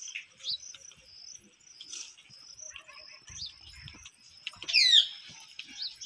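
Short high-pitched chirps repeat throughout, and about five seconds in a parakeet gives one loud, harsh screech that sweeps downward in pitch.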